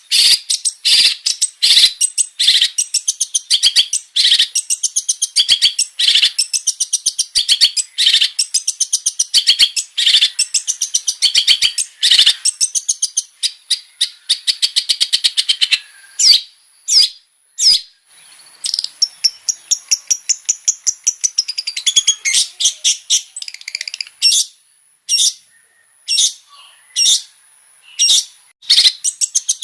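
Long-tailed shrike (cendet) singing in full voice: a fast, varied chatter of rapid repeated high notes, thinning to scattered single calls for a couple of seconds about halfway and again a few seconds before the end.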